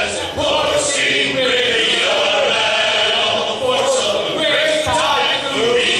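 Several voices singing together loudly, as a group sing-along. The low backing drops away at the start, leaving the voices mostly on their own.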